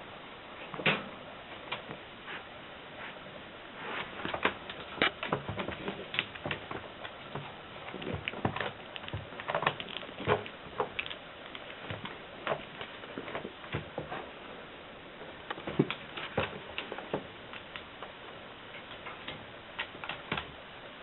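Irregular light clicks and taps, some coming in quick clusters of several a second.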